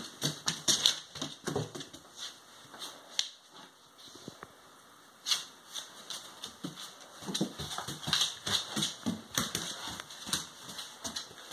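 A dog's claws clicking and scrabbling on a tile floor as it paws and mouths a rubber ball, with the ball knocking against the tiles in quick, irregular taps. There is a short lull about four seconds in.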